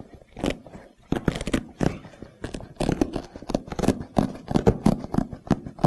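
Old hook-and-loop (Velcro) strips being pulled apart between a leather seat cover and the seat foam: a run of short, irregular ripping crackles, several a second.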